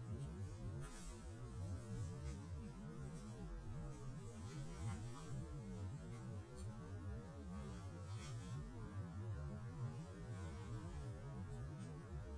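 A low, steady rumbling hum with a faint hiss above it.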